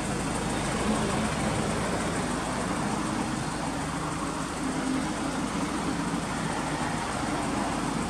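Honda S2000 AP1's 2.0-litre F20C four-cylinder idling steadily, heard at the exhaust tailpipes.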